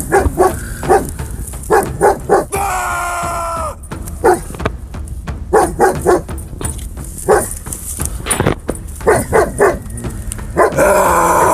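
Dog barking repeatedly in short, sharp barks while facing off with a cougar. About three seconds in comes one longer, wavering cry that falls in pitch, and near the end a loud rush of noise.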